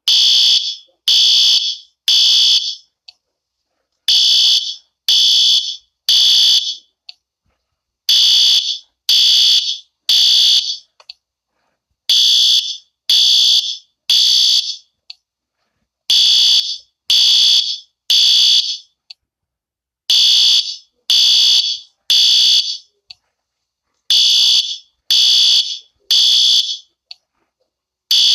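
Fire alarm sounding in the temporal-three evacuation pattern: three loud, high-pitched beeps about a second apart, then a pause, repeating every four seconds.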